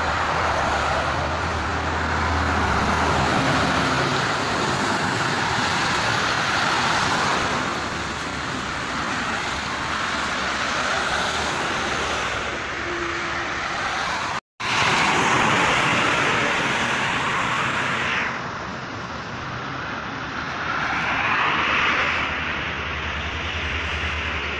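Highway traffic: cars, trucks and buses passing close by, the tyre and engine noise swelling and fading as each vehicle goes past. The sound cuts out for a moment about halfway through.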